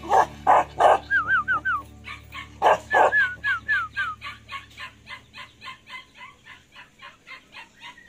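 Bắc Hà dog barking: three loud barks in the first second and another near three seconds in, then a quicker run of fainter barks that fades away.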